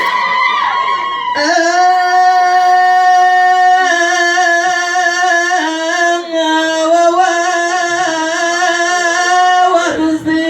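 A person singing long, held notes with a slight vibrato, the pitch shifting every couple of seconds, with a brief break near the end. Mixed voices come just before the singing starts, about a second in.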